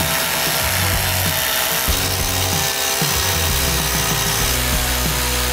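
Milwaukee cordless electric ratchets whirring as they spin bolts out of an engine's intake manifold, over background music.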